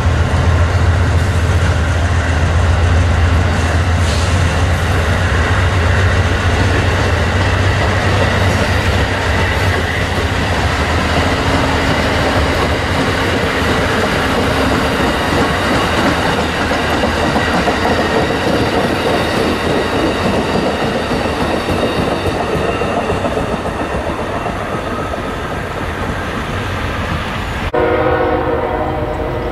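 Amtrak passenger cars rolling past on the rails, a steady rumble and clatter of wheels with a low drone that thins out after the first third. About two seconds before the end the sound cuts to a quieter scene where a distant train horn sounds a chord.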